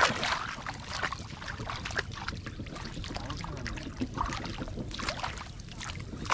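Shallow water splashing and sloshing as hands grab at a fish among the weeds, in irregular splashes, loudest at the start and near the end.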